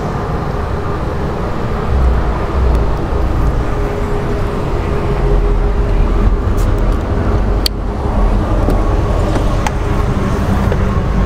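Steady low rumbling background noise, with a single sharp click about two-thirds of the way through.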